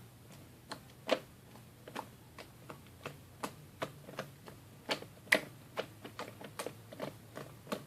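Slime being kneaded and squeezed by hand, giving off irregular sharp clicks and pops, two or three a second, as air pockets in it burst.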